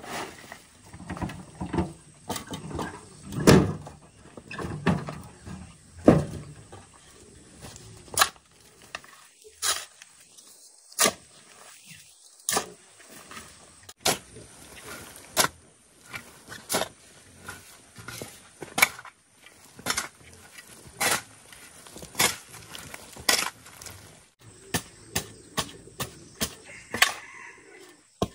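A metal shovel striking and scraping into a pile of dry soil and clods, a sharp strike about every second and a half. In the first few seconds come heavier thuds of earth tipped out of a wheelbarrow.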